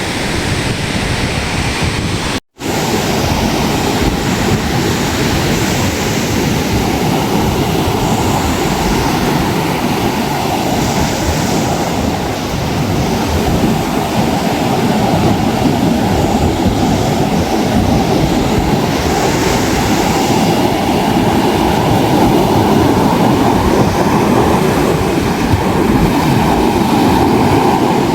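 Ocean surf breaking on a beach, a steady, continuous rushing noise. The sound drops out to silence for a split second about two and a half seconds in.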